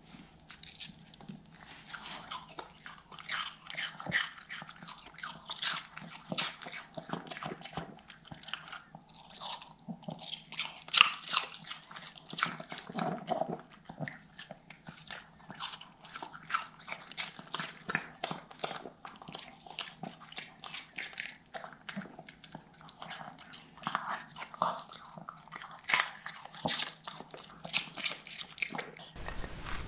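Miniature pinscher biting and chewing pieces of raw apple: a close, irregular run of crunches and wet clicks, the loudest about eleven seconds in.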